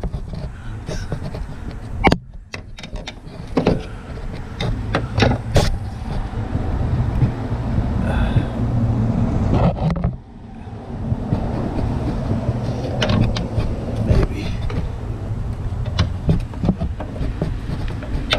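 Steel pry bar clinking and knocking against a Jeep Cherokee door hinge and its cut, worn hinge pin as the pin is levered up and down to work it loose: irregular sharp metal clicks over a steady low rumble.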